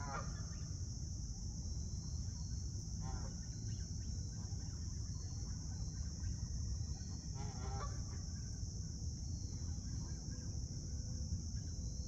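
Geese honking, three short calls a few seconds apart, over a steady high-pitched chirring of crickets.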